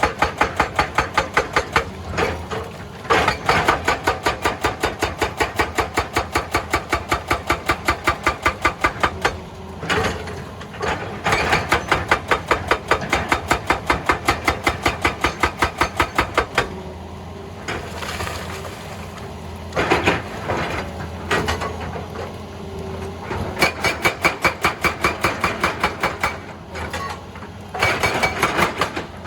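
Hydraulic rock breaker on a Hitachi EX200 excavator hammering rock in fast, even blows over a steady engine sound. The hammering runs for about sixteen seconds, stops, then returns in a few short bursts.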